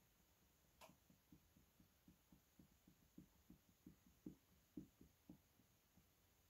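Hand-spun ceiling fan motor coasting down: faint soft knocks, one per turn, that start at about four a second and slow to about two a second before stopping.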